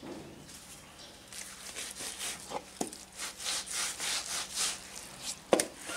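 Hands rubbing coarse salt and pepper into a raw leg of goat on a wooden cutting board: rhythmic scrubbing strokes, a few a second, with a sharp knock near the end.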